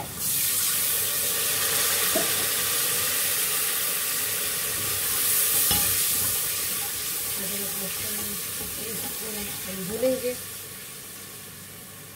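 Oil and masala sizzling in a hot aluminium pressure cooker while a ladle stirs, with a few light knocks of the ladle against the pot; the sizzle eases off toward the end.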